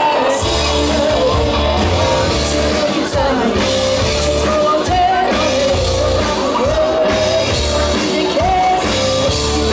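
Live rock band playing through a PA: a singer's voice over bass and drums with a steady beat, starting about half a second in.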